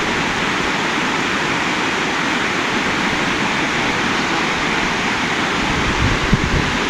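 Steady rushing of water flowing at a dam. There is a brief low thump near the end.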